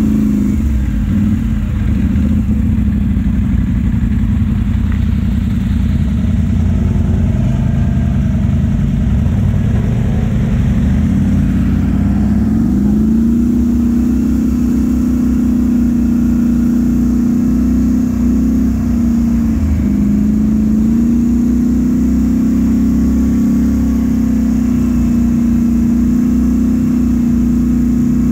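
ATV engine running steadily under way, its note climbing about twelve seconds in, dipping briefly near nineteen seconds and coming back up as the throttle changes.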